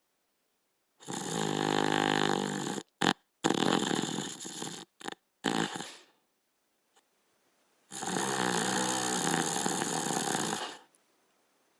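Border collie snoring in its sleep. A long snore starts about a second in, a run of shorter, broken snores follows between about three and six seconds, and another long snore comes near the end.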